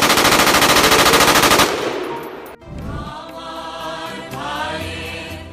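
Loud, rapid automatic gunfire, a continuous burst from a rifle or machine gun, that fades out after about two seconds. About three seconds in, voices begin singing a slow melody.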